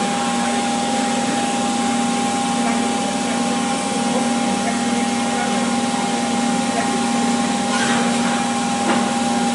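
A machine running steadily with an even whirring hum that holds one low tone and one higher one, with a couple of faint clicks near the end.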